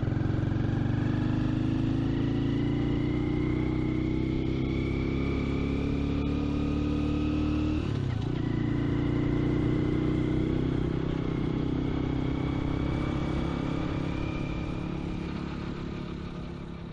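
Honda Super Dream-type motorbike's small single-cylinder four-stroke engine running under way. Its pitch climbs steadily, dips about eight seconds in as at a gear change, climbs again, then eases off near the end. A faint rising whine sits above it.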